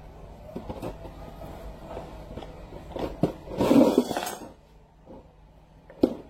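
Metal tools and car parts clinking and knocking during hands-on work on a steering rack, with a louder clatter lasting about a second a little past halfway and a sharp knock near the end.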